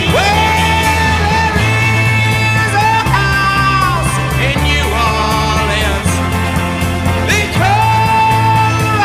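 1960s rock recording: a loud male lead vocal in long held phrases that scoop up into each note, over electric organ, arpeggiated electric guitar, bass and drums.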